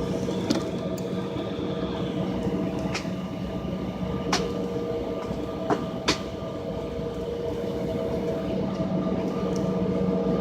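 Steady cabin noise of an airliner on the ground before takeoff, a constant engine and air-system hum with several steady tones. Now and then a sharp click or knock, four or five times in all, like fittings rattling as the plane rolls over joints in the pavement.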